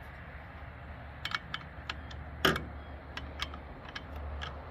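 Small sharp clicks and ticks of plastic and metal parts as a chainsaw is handled and worked on by hand, with a stronger knock about two and a half seconds in.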